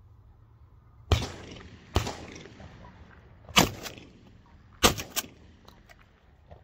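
Four shotgun shots, each a sharp bang with a short fading echo, spread over about four seconds. A smaller sharp report or click comes right after the last one.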